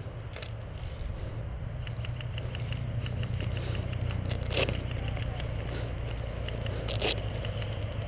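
Low rumble of wind and movement on a body-worn camera's microphone, with scattered faint ticks and two sharp clicks, one a little past halfway and one near the end.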